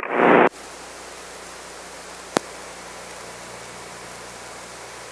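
A radio voice cuts off about half a second in, leaving a steady static hiss on the radio and intercom audio line. A single sharp click comes about two and a half seconds in.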